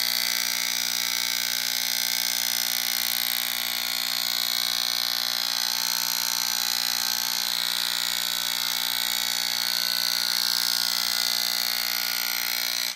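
Handheld electric percussion massager (a 'hit massage' device) buzzing steadily as its tip is pressed against the face, giving fine rapid vibration to the skin and muscles. It cuts off suddenly near the end.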